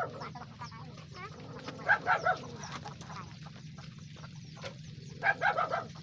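Chickens clucking in two short bursts, about two seconds in and again near the end, over a faint steady low hum.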